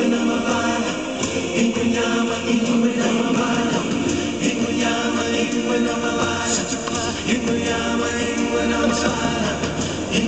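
Choral music: a choir chanting and singing continuously over a musical backing.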